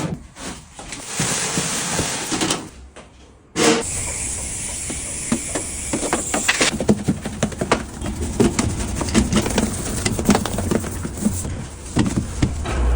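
Household cleaning sounds: a steady hiss with many small knocks and scrapes, which breaks off briefly about three seconds in and then resumes.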